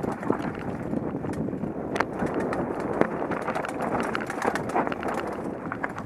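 Mountain bike rattling down a rocky singletrack: a steady rumble of tyres over dirt and stones, broken by frequent sharp clicks and knocks from the bike jolting over rocks.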